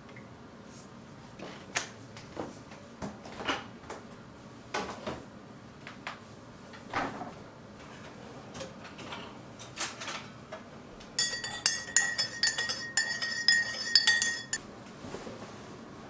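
A few scattered light knocks and taps, then a spoon stirring quickly in a ceramic coffee mug, clinking and ringing against its sides for about three seconds.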